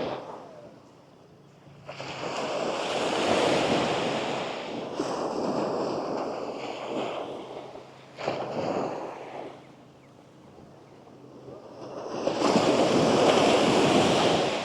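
Gentle sea waves breaking and washing up onto a sand beach, rising and falling in surges: a long wash in the first half, a short one about eight seconds in, and the loudest near the end.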